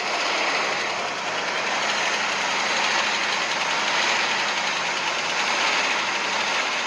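Battery-powered toy rail car running steadily along a flexible plastic track, its small motor and wheels making a continuous whirring rattle.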